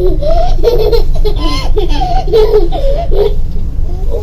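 A baby laughing in short repeated bursts, over a steady low hum.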